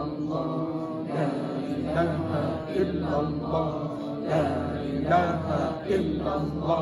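A group of voices chanting prayers together in a slow, melodic recitation, in phrases that rise and fall with short breaths between them.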